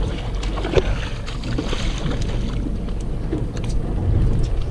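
Steady low rumble of a boat on open water with wind on the microphone, and a few faint knocks and splashes as a small fish is lifted out beside the hull.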